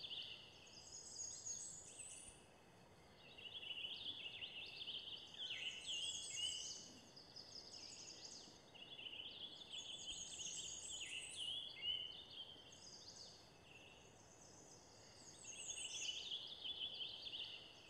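Birdsong: a songbird sings several phrases of high, quick, repeated notes, with short pauses between them.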